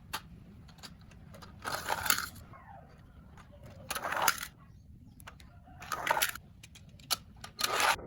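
Plastic toys and packaging being handled: four short rustling, clinking bursts about two seconds apart, with small clicks in between.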